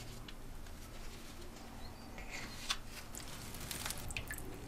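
Quiet handling noises of a small houseplant being lifted out of its pot at a sink: light scraping, rustling and little clicks, with one sharper tap a little before three seconds in.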